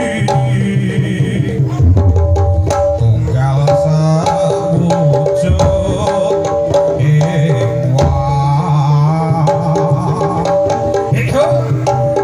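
Javanese jaranan dance music: hand-drum beats over steady held melodic tones.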